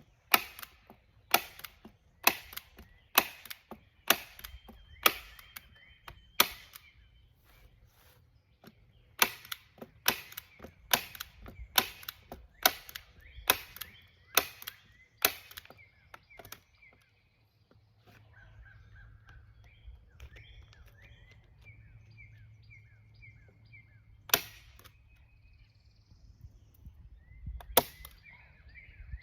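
Heavy-duty hand staple gun firing staples into the greenhouse plastic and frame: a run of sharp snaps about once a second, a short pause, another run, then two single shots near the end.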